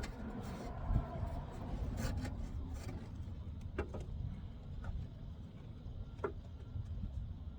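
Rubbing and scraping of hands working a truck's interior trim panel, with a few short light clicks a little over halfway through.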